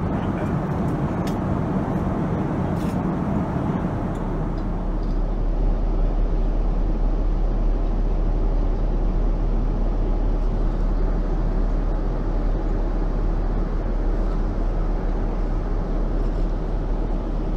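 Steady cabin noise of a Boeing 787-9 in cruise: airflow and the drone of its Rolls-Royce Trent 1000 engines heard from a window seat. About four seconds in, the sound shifts to a deeper rumble with less hiss.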